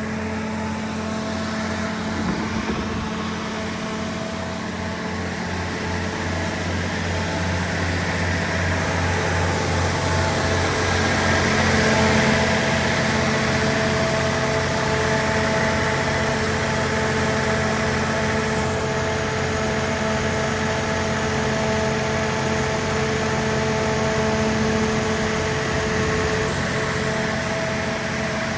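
Cummins NTA-855-G2 turbocharged inline-six diesel engine of a 300 kW generator set running at a steady speed, with a steady whine above the engine note.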